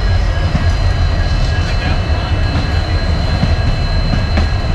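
A train running past on the track: a loud, steady rumble of wheels on rails, with a thin high whine held over it.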